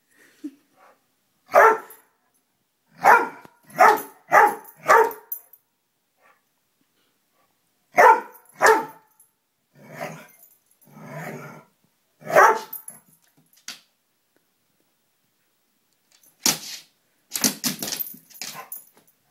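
Dog barking at a moth in short sharp barks: a single bark, then a quick run of four, two more, and another, with lower rougher noises between. Near the end comes a cluster of quick scuffling knocks.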